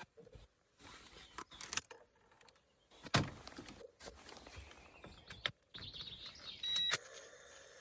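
Scattered clicks and knocks of plastic and metal parts being handled while the air filter box and intake pipe are taken apart, with one louder knock about three seconds in. Near the end a steady high hiss starts suddenly and becomes the loudest sound.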